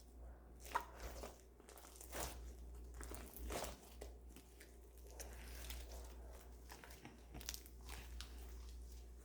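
Homemade slime being squished and pressed by hand for ASMR: soft, irregular crackles and little pops.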